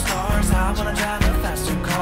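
Background pop music with a steady beat and bass.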